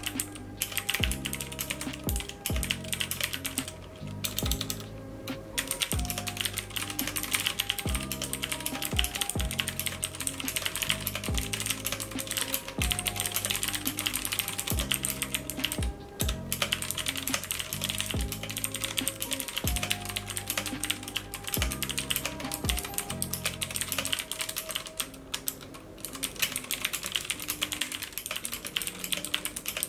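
Fast typing on a stock mechanical keyboard with Outemu Blue clicky switches: a dense stream of sharp key clicks, pausing briefly a few times.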